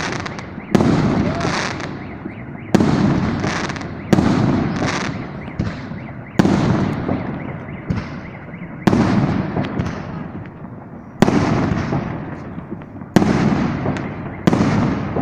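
Fireworks display: aerial shells bursting one after another, about eight sharp bangs roughly every two seconds, each trailing off over a second or two.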